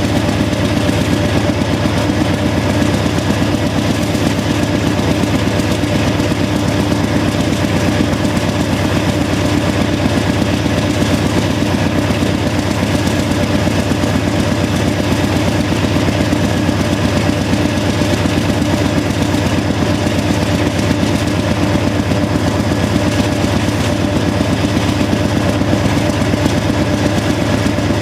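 GE AC4400CW diesel locomotive's 16-cylinder GE 7FDL engine working hard under heavy load, hauling a double-stack train: a loud, steady exhaust drone with a fast throb.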